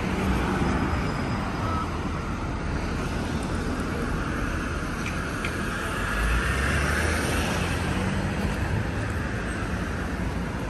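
Road traffic passing close by on a busy street: a steady rumble of engines and tyres, swelling louder about six seconds in as a van drives past.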